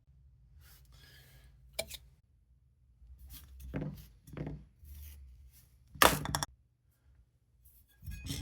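Hard plastic parts being handled and fitted together: a string of separate knocks, clicks and scrapes, with one sharp loud click about six seconds in, over a low steady hum.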